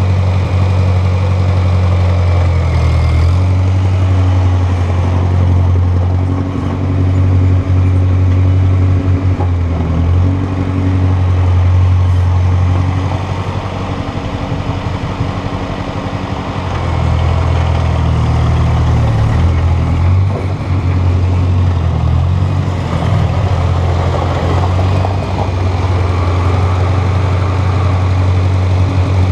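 1953 Ford NAA Jubilee tractor's four-cylinder gasoline engine running steadily at low speed as the tractor drives. It fades somewhat about halfway through as the tractor moves away, then grows louder again as it comes back toward the listener.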